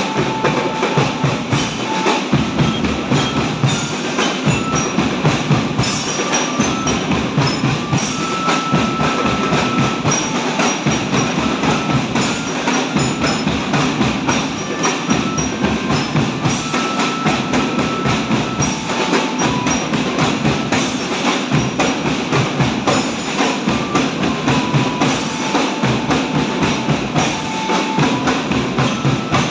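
Marching drum band practising: a steady rhythm of rapid drum strokes, with short held melody notes above it.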